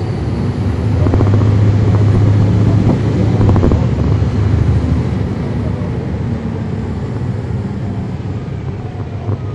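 Caterpillar C13 ACERT diesel engine of a NABI 40-foot transit bus, heard from the rear seat above the engine bay. It pulls hard and grows louder about a second in, holds for a few seconds, then gradually eases off.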